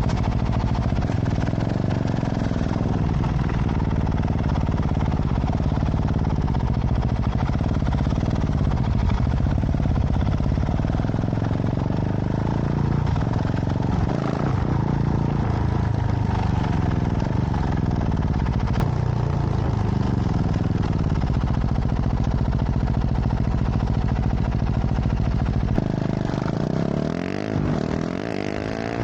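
KTM 690 SMC R single-cylinder engine through a full LeoVince exhaust, running continuously with its engine speed rising and falling again and again, as when riding through the gears.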